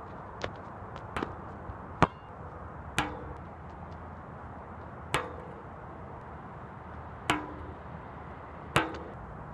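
A basketball bouncing on a hard outdoor court, about seven sharp bounces at uneven gaps. Several leave a brief pitched ring from the ball. A steady low background noise runs underneath.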